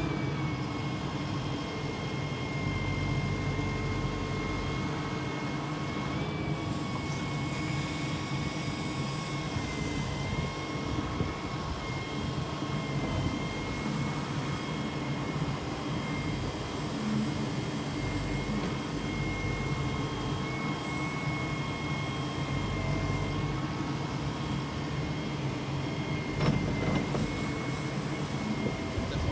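Volvo EW150E wheeled excavator running: a steady engine drone with a steady high-pitched whine over it, and a short click near the end.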